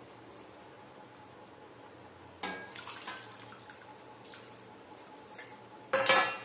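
Water poured from a steel pan into a steel kadai of besan-and-buttermilk kadhi batter, splashing as it goes in, thinning the kadhi. Near the end comes a louder clatter with a metallic ring as the steel ladle knocks against the kadai while stirring.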